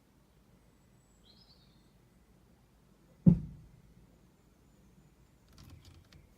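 A single heavy clunk from a Ford Focus 1.6 diesel, heard inside the cabin after the car has come to a stop. It is one sharp, deep knock about three seconds in that dies away within half a second. It is an unexplained fault noise.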